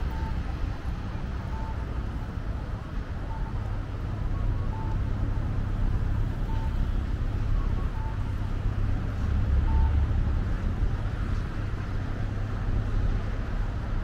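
Steady road-traffic rumble of a city street, with short faint high tones recurring every second or two.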